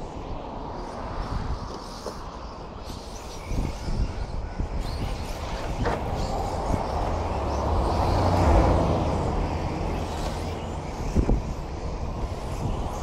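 Radio-controlled racing trucks running on a dirt track: a steady rushing noise with a low rumble that swells about eight seconds in, and a couple of sharp knocks.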